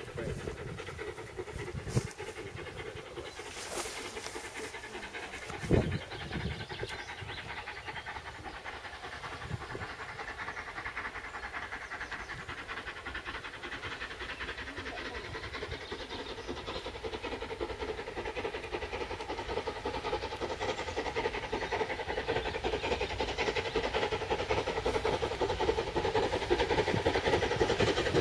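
LMS Royal Scot class 4-6-0 No. 46115 'Scots Guardsman', a three-cylinder steam locomotive, approaching with steady rhythmic exhaust beats that grow steadily louder as it nears. A single sharp thump comes about six seconds in.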